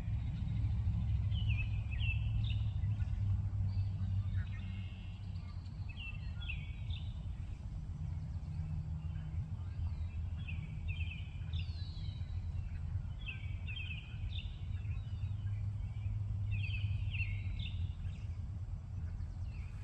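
A bird calling repeatedly: short phrases of quick stepped, falling notes every few seconds, over a steady low rumble.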